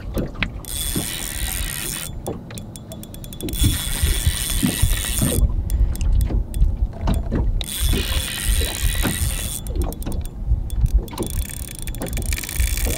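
Spinning reel cranked under the load of a hooked lake trout, its gears turning with a run of small mechanical clicks. Wind rumbles on the microphone.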